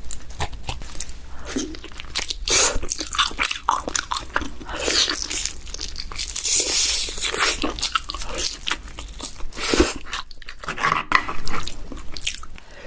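Close-miked king crab eating sounds: the shell crunching and cracking in a dense run of sharp crackles, with chewing.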